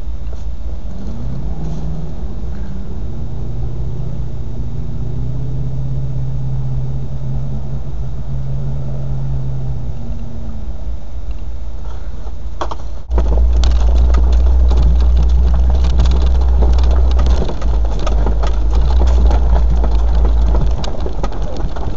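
Land Rover engine running, its pitch rising and falling in the first couple of seconds and then holding steady until about ten seconds in. After an abrupt break about 13 seconds in, a much louder low rumble with dense crackling and rattling takes over.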